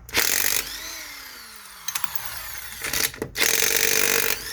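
Eastvolt 800 W electric impact wrench hammering in reverse to break lug nuts loose: loud bursts about half a second in, then again near the end, with the motor's whine falling away as it spins down between them.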